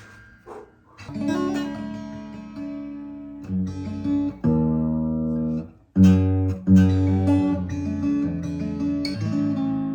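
Martin OM-28 steel-string acoustic guitar played solo, chords struck one after another and left to ring, with a short gap just under a second in.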